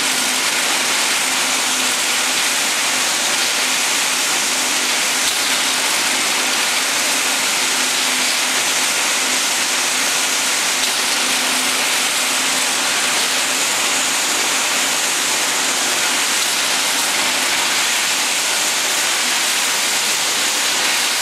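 Steady, loud rushing hiss of a rebar straightening and cutting machine running, with a faint steady hum underneath.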